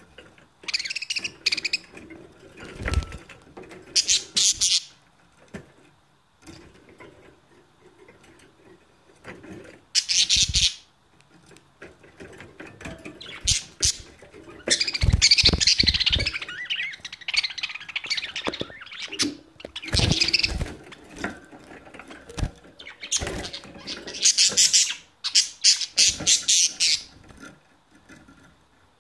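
Budgerigars chattering and warbling in repeated bursts a few seconds apart, with a few short low thumps in between.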